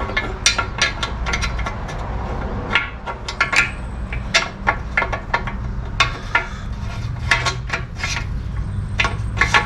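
Irregular light clicks and clinks of small metal transmission parts being handled on the bench, over a steady low hum.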